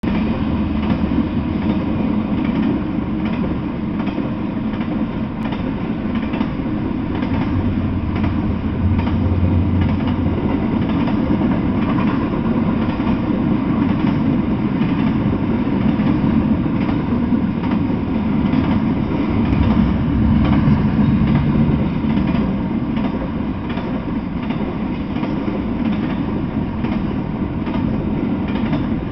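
Intermodal freight train cars (double-stack container well cars and a trailer spine car) rolling past on the rails: a steady rumble of steel wheels with repeated clicks and rattles.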